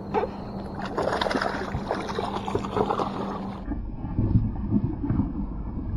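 Water splashing and sloshing beside a small boat, with short clicks and knocks of handling, while a hooked bass is brought in. Partway through the sound turns to uneven low rumbling bursts.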